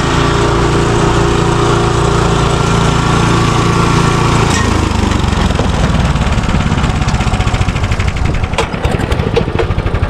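Small petrol lawn mower engine running loudly and steadily. About halfway through its steady note gives way to a rapid, even pulsing, and a few sharp clicks come near the end.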